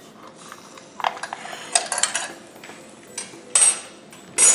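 Metal skewers of an air fryer oven's rotisserie skewer rack clinking and clattering as the rack is handled and set down upright on the counter. There are a few separate sharp clinks, the loudest two in the last second.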